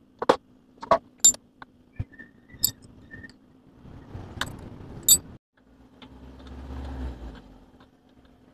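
Sharp metallic clinks and knocks of work on a scooter's rear wheel, about half a dozen in the first five seconds. After a brief cut-out, a low steady hum follows.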